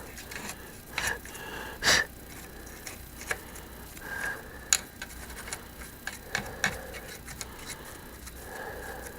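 Short hissing bursts from a can of compressed-air duster blowing dust out of a radio chassis, the strongest about two seconds in, with scattered small clicks and knocks of handling.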